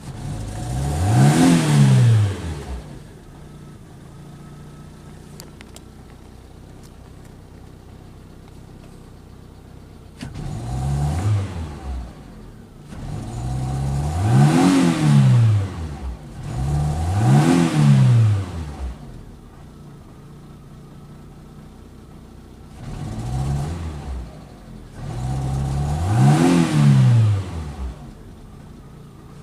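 Fiat Punto mk2's 1.2 16v four-cylinder petrol engine idling, blipped up about six times with the pitch rising and falling back to idle each time. The owner puts it forward as a rough idle.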